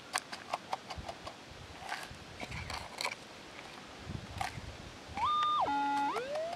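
Metal detector giving an electronic target signal about five seconds in: a tone that glides up, holds, steps down and glides again, as the scoop of soil is passed over the coil. It is a sign that the target is in that soil. Before it come light clicks and rattles of soil and small stones being handled.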